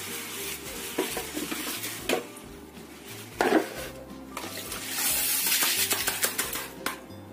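A few knocks and clinks of kitchenware being handled, the loudest about three and a half seconds in, then water poured from a jug into an empty non-stick wok for about two seconds, a steady splashing hiss that stops near the end. Background music plays throughout.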